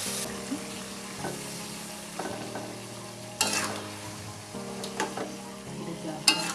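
Food sizzling as it fries in a pan, stirred with a few sharp scrapes of a utensil, over background music with held chords.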